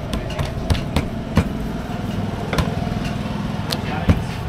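Roti dough being worked and slapped on a steel counter, giving several sharp slaps and taps, over a steady low mechanical rumble.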